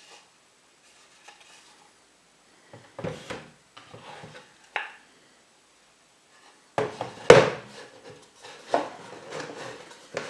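Small wooden trays handled and set down on a tabletop: a run of hollow wooden knocks and clatters with some sliding and rubbing between them, the loudest knock a little past the middle.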